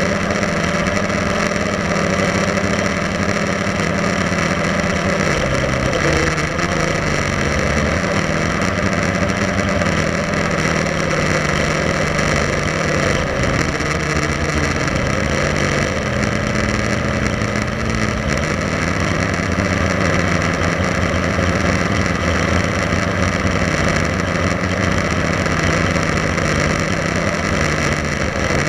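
Blade 350 QX3 quadcopter's brushless motors and propellers buzzing steadily, heard from the camera on board, the pitch dipping and rising again several times as the throttle changes.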